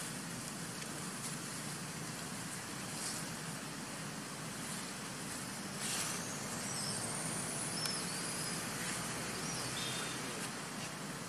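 Steady outdoor background hiss, with a faint click about six seconds in and a few faint, high, short chirps and a thin slowly rising whistle in the second half.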